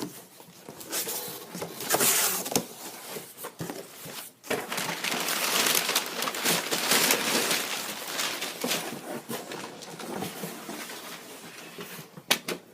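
A large cardboard shipping box being opened and handled: rustling and scraping of cardboard and packaging, with scattered knocks. The noise is loudest about two seconds in and again through the middle.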